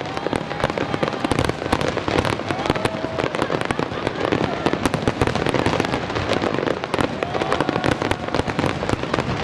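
Many aerial firework shells bursting in rapid, unbroken succession, with crackling: a dense closing barrage of a fireworks display.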